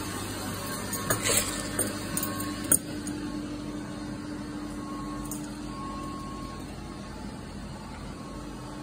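A few knocks and rustles in the first three seconds, the sharpest near the end of that stretch, over a steady low hum of room ambience.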